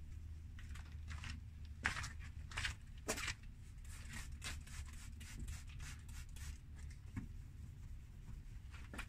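Fine 4000-grit sandpaper scraping over a plastic headlight lens in a string of short, irregular strokes, heaviest a couple of seconds in, over a steady low hum.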